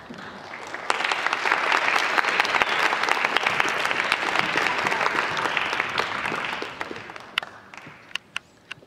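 Audience applause that starts about a second in, holds for several seconds and then dies away, leaving a few last scattered claps near the end.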